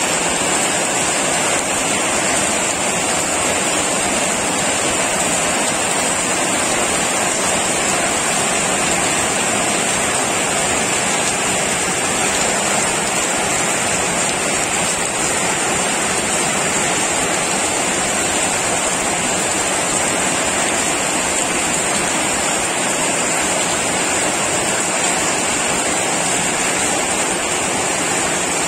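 Heavy rain falling steadily on roofs and wet paving: a constant, even rush with no break or change.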